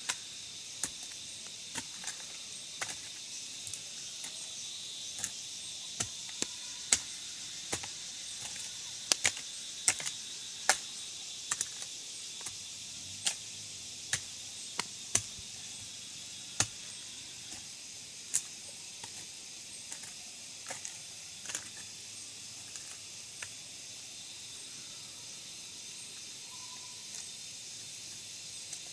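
Irregular sharp knocks and scrapes of a long-handled digging tool working hard ground, frequent in the first half and sparser later, over a steady high hiss of forest insects.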